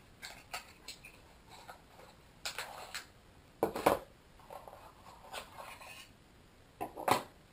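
Hands handling a small cardboard box and pulling folded paper leaflets out of it: scattered taps, scrapes and paper rustles, with louder knocks about four seconds in and again about seven seconds in.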